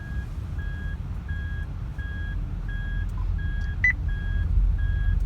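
Steady electronic beeping, a short single-pitch beep repeating about two to three times a second, over the low rumble of a moving car.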